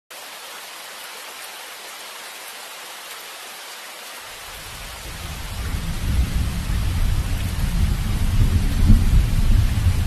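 Steady rain hiss, joined about four seconds in by a deep rolling rumble of thunder that builds and keeps going.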